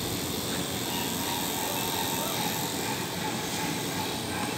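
Corded electric pet clippers running with a steady buzz while trimming the fur on a dog's head.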